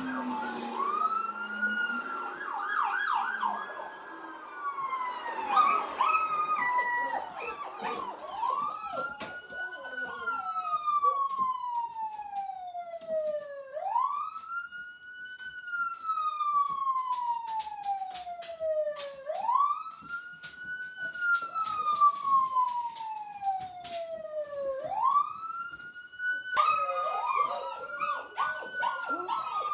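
Recorded police car siren playing back in a slow wail: a quick rise, then a long falling sweep, repeating about every five seconds. Near the end a second, busier siren layer joins.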